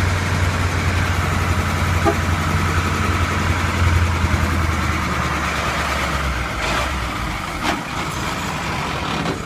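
Truck engine held at raised revs, its note dropping about halfway through as it settles back toward idle.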